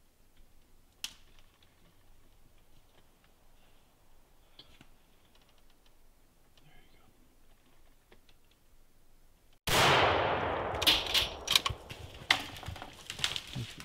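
A single loud rifle shot about ten seconds in, its report trailing off over about a second, shooting the black bear at the bait. It is followed by several sharp clicks and knocks.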